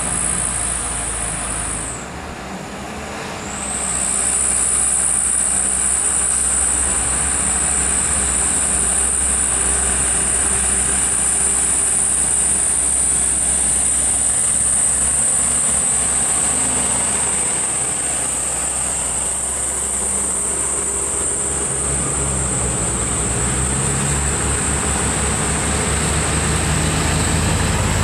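Heavy truck's diesel engine labouring slowly up a steep incline, a low uneven rumble that grows stronger near the end. A steady high-pitched whine sounds over it and drops out briefly about two seconds in.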